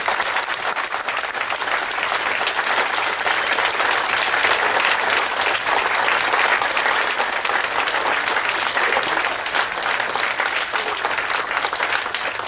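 Audience applauding with many hands clapping steadily, a sustained ovation at the close of an award acceptance speech.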